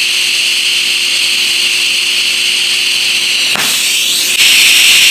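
TIG welding arc running steadily at about 150 amps with no filler wire, a constant hiss and buzz as the cup is walked along the joint. About three and a half seconds in there is a sharp crackle, and a second later the arc becomes louder.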